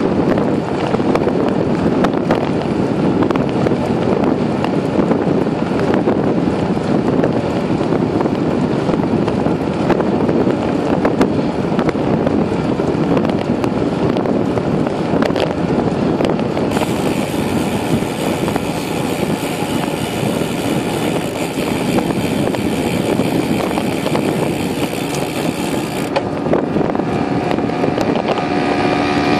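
Wind rushing over the microphone of a handlebar-mounted camera on a moving bicycle, a loud, steady buffeting. A thin high hiss joins it a little past the middle and stops about ten seconds later.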